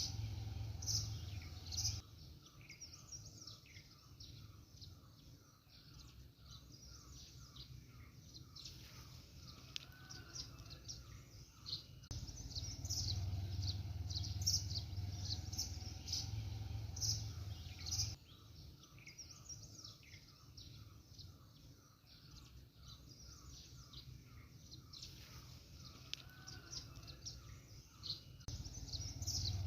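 Birdsong: many short, high chirps from several birds, with a fast run of evenly repeated lower notes in the quieter stretches. A low rumble comes in for several seconds at a time.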